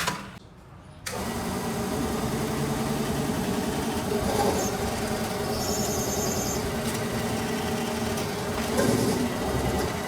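Workshop machine motor running with a steady hum, coming in abruptly about a second in, with a few short louder noises over it.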